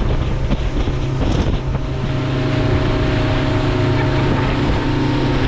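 Outboard motor of a small fishing boat running steadily under way, with wind buffeting the microphone and water rushing past the hull.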